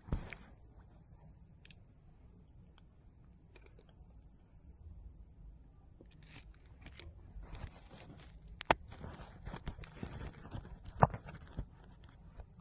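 Cloth of a coat rustling as it is handled, with two sharp clicks in the second half, the later one the loudest, as magnets snap together through the fabric behind a badge.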